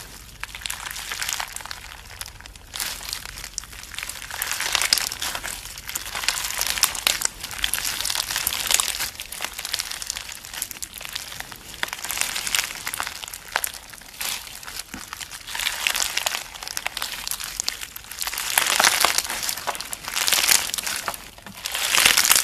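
Slime being squeezed and kneaded by hand, giving a dense crackling of tiny pops that swells and fades in waves every second or two.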